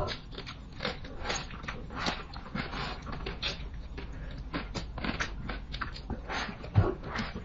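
Close-up eating sounds: fast, irregular crunching and smacking of food, with a heavier thump near the end.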